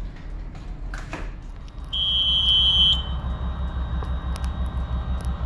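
Bridge manoeuvring system console sounding one steady high beep for about a second as main engine control is switched over to the bridge, over a low pulsing hum of ship machinery.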